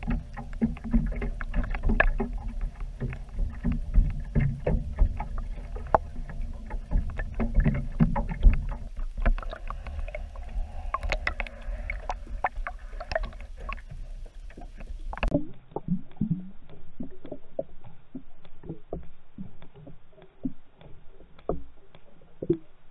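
Muffled underwater sloshing and rumble with many irregular clicks and knocks, as picked up by a camera submerged in the water. About fifteen seconds in, the sound turns duller and quieter, leaving only scattered clicks.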